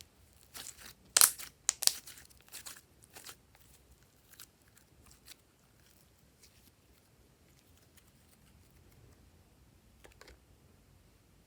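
Crinkling and crackling handling noises in a quick cluster over the first three seconds, loudest about a second in, followed by a few faint scattered clicks.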